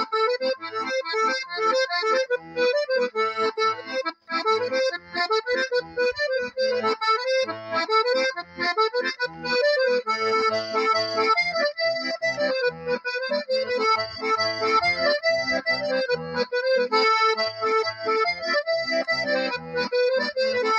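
Hohner two-row diatonic button accordion playing a traditional tune: a melody on the right-hand buttons over a regular left-hand bass-and-chord rhythm, with a brief break about four seconds in.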